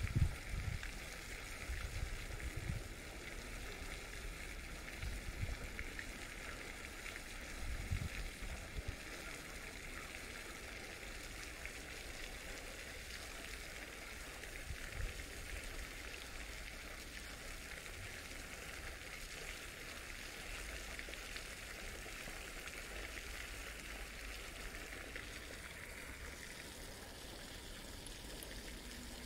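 Steady hiss of splashing water. Gusts of wind buffet the microphone in the first few seconds and again about eight seconds in.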